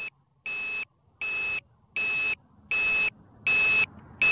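Electronic buzzer on a downed quadcopter beeping steadily, a short high-pitched beep about every three-quarters of a second, each beep louder than the last. A signal of this kind is typical of the lost-model alarm that helps find the drone on the ground.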